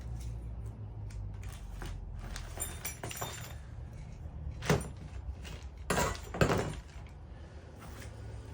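Diesel heater kit parts being handled: a light rattle and rustle, then three sharp knocks about five, six and six and a half seconds in, over a steady low hum.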